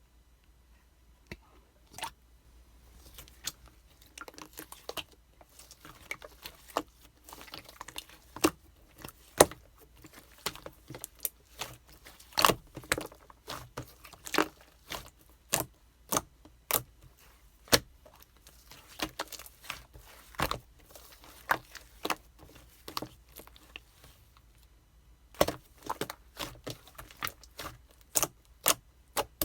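Slime being squeezed and mixed by hand, giving irregular sharp clicks and pops with sticky crackling between them.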